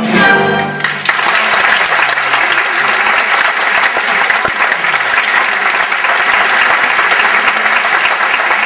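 Large theatre audience applauding, breaking in about a second in as the orchestra's closing chord dies away, then a loud, steady ovation.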